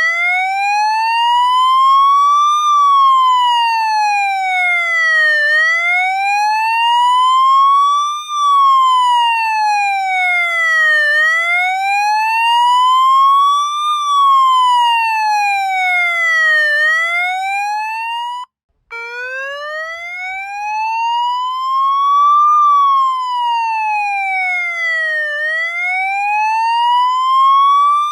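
Police siren sounding a slow wail, its pitch rising and falling smoothly about every five and a half seconds. It cuts out for a split second about eighteen seconds in, then starts again from a low pitch.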